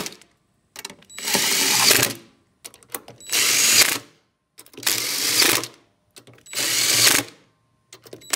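DeWalt cordless impact driver hammering 10 mm bolts tight on a Samsung washer's stator, in bursts of about a second with short pauses between: four full runs, the tail of one at the very start and another beginning near the end.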